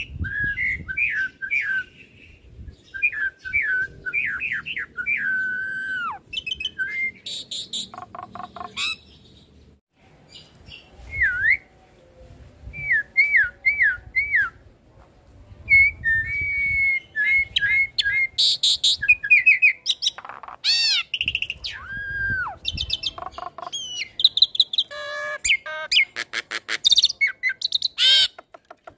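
Jalak Suren × Jalak Nias hybrid starling (pied starling crossed with hill myna) singing a varied medley: fast runs of short whistled notes and pitch sweeps, repeated arching glides, and harsh squawks and clicks. There is a brief pause in the middle.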